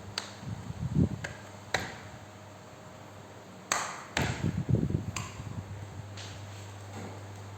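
Metal parts and tools being handled on a workbench: a few sharp pings and clicks and two clusters of dull knocks, over a steady low hum.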